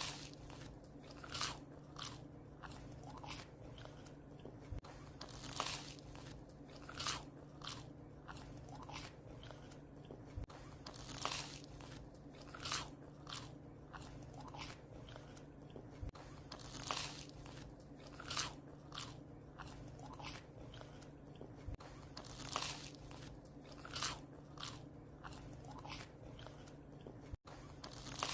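A dog crunching and chewing bread, with a crisp bite about every second and a half over a steady low hum.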